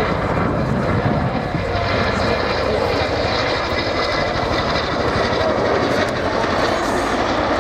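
Boeing Chinook tandem-rotor helicopter flying a display pass, its two rotors giving a loud, fast, steady blade slap over the run of its turbine engines.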